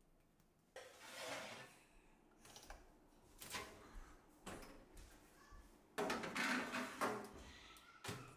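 Countertop oven's drop-down metal door being opened and handled, with knocks and clattering, the loudest about six to seven seconds in, and a sharp click near the end as the door shuts.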